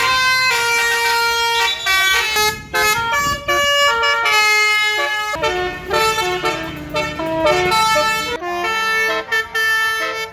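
Tour bus's basuri telolet horn playing a melody of quick stepped notes in several phrases, over the low rumble of the bus.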